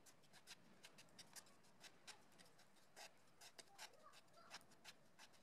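Faint, irregular scraping and clicking of a thin wooden stick stirring sawdust and white glue into a paste on a plywood board.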